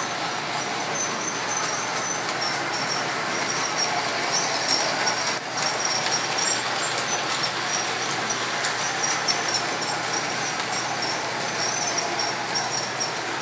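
Large-scale model train, a small 0-4-0 locomotive pulling nine cars around a circle of track at about 35% power: a steady rolling rumble of wheels on the rails, with intermittent high-pitched squeaks.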